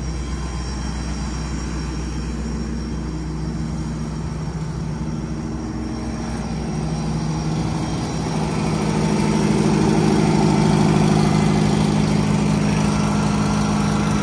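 BOSS BA435 hydraulic-driven air compressor on a truck service body running with a steady mechanical hum over the idling diesel engine that drives its hydraulics. The hum grows louder about eight seconds in.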